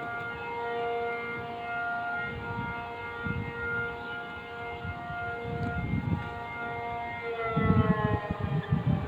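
Civil-defence air-raid siren sounding the alert for Taiwan's Wan An air-raid drill: a steady held wail whose pitch starts to fall about three-quarters of the way through. Low rumbling comes and goes underneath.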